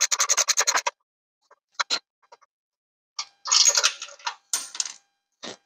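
Hand ratchet with a T45 Torx socket on a long extension clicking rapidly, about a dozen clicks a second, and stopping just under a second in. A few separate clicks and a short scraping of the metal tool follow as it is handled.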